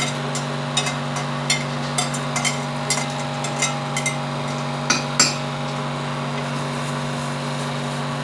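A utensil knocking and scraping against cookware in light, irregular taps, about two a second, with two louder knocks about five seconds in, then stopping. A steady hum from a kitchen range hood fan runs underneath.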